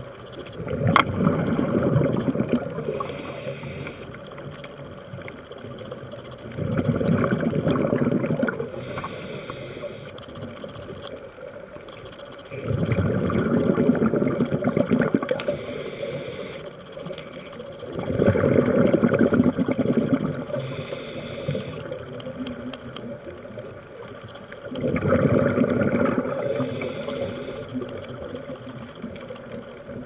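Scuba diver breathing through a regulator underwater: five breaths about six seconds apart. Each is a rushing burble of exhaled bubbles and a short high hiss from the regulator.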